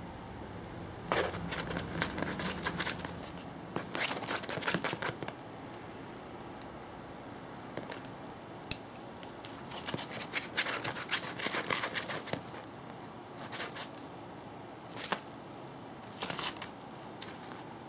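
Cats pawing and pouncing at a feather wand toy on a tatami mat: bursts of scratchy, crackly rustling as claws scrabble over the woven straw and the toy, coming in several irregular flurries with short pauses between.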